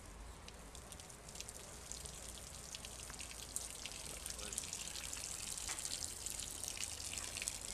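Fluid draining in a thin stream from a swelling on a cow's belly and spattering onto the bedding below: a steady wet patter of many small drips and splashes that grows a little louder.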